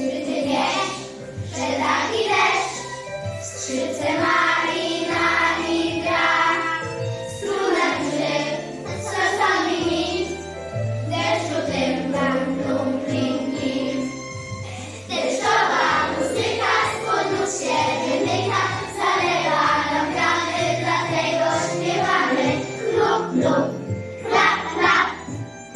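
A children's song: a group of voices singing over an instrumental backing track with a steady bass line and jingling bells.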